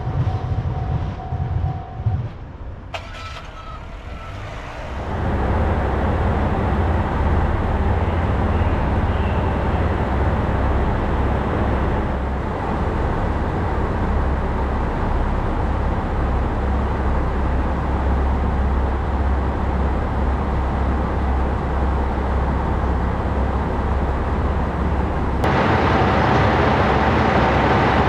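Diesel railcar engine idling at a station platform, a steady low rumble. About two seconds in, a level-crossing alarm stops ringing, and the rumble takes over a few seconds later.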